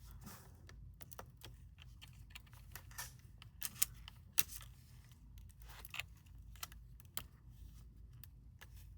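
Irregular small clicks and taps as a laptop's fan cable connector is handled and pressed into its socket on the motherboard, over a low steady hum.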